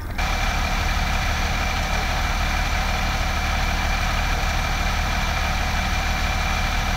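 Fire engine's diesel engine idling steadily, a low rumble with a steady high-pitched whine over it.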